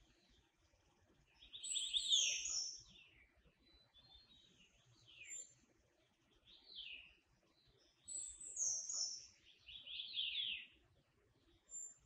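Snowy-browed flycatcher singing: two high, thin, tumbling song phrases about six seconds apart, with a few short high notes between them.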